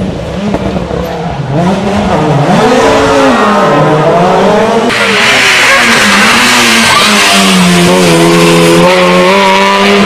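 Rally car engines revving hard, the pitch climbing and dropping again and again with throttle and gear changes. First comes a Peugeot 207 S2000's naturally aspirated four-cylinder sliding through a corner, then after about five seconds another car running with a hiss over the engine.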